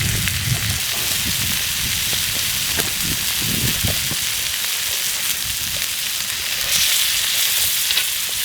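Food sizzling in a cast iron pan over a campfire: a steady frying hiss with small scattered crackles, a little louder near the end.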